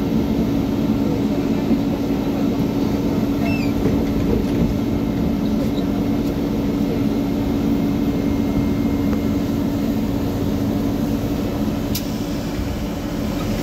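Cabin sound inside a YuMZ-T2 trolleybus: a steady electric hum over low running rumble, with one sharp click near the end.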